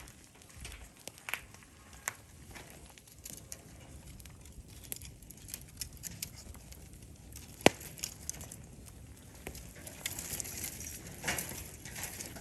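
Wood campfire crackling, with irregular small pops and one sharp loud crack about two-thirds of the way through.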